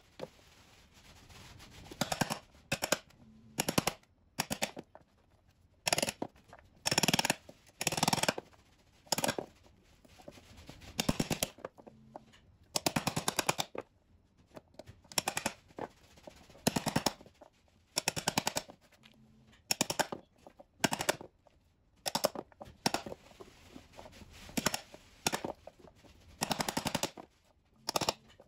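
A hand chisel scraping and prying at a hard lump of chaga fungus, in short bursts of rapid rasping knocks, one every second or two, as pieces break off onto a wooden board.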